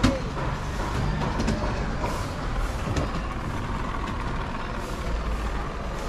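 Steady low rumble of road traffic under general market background noise, with a sharp knock right at the start.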